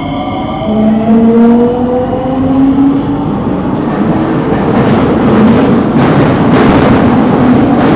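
Electric metro train's traction motors whining and rising slowly in pitch as it accelerates out of a station, with the rumble of wheels on rail growing louder in the tunnel, heard from inside the carriage.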